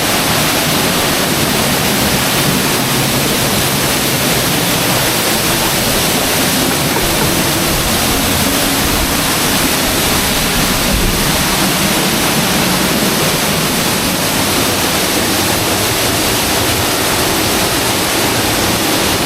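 Loud, steady rush of a 75-foot waterfall, Dry Falls on the Cullasaja River, heard close up from the path behind the falling water.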